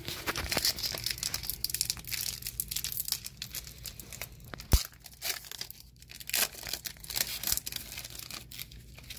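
A foil-wrapped Magic: The Gathering booster pack being torn open, its wrapper crinkling in a run of crackles, with one sharp knock a little before halfway.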